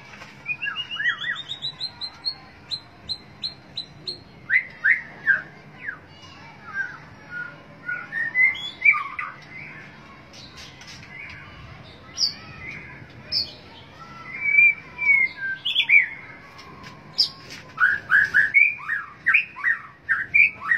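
White-rumped shama (murai batu) singing: a quick series of short notes rising in pitch, then a varied run of whistled phrases.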